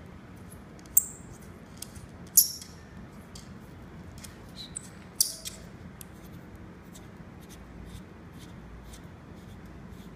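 Small clicks and scrapes of hands turning and tightening the screw joint that connects a flexible-tube inspection camera to its telescopic pole, with three sharper clicks about 1, 2.5 and 5 seconds in and faint ticks between.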